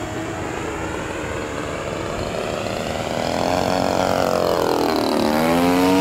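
Radio-controlled model plane's motor and propeller buzzing overhead. It grows louder about halfway through, and its pitch rises and falls in two sweeps.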